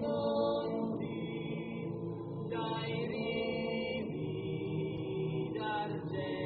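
A choir singing a slow song in long held chords.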